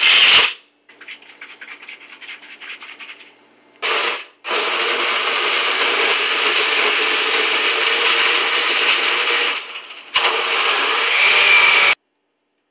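Countertop blender motor chopping a jar packed with dense, solid food: first in short stuttering bursts, then running steadily for several seconds, dipping briefly and picking up again before cutting off abruptly near the end.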